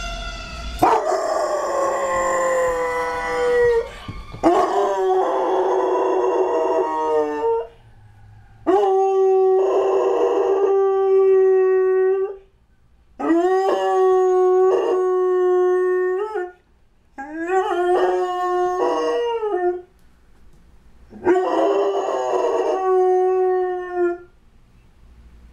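A Doberman–Labrador mix dog howling, about six long howls of two to three seconds each with short breaths between, mostly held on one pitch and bending at the ends. The howling is set off by a fire truck's siren.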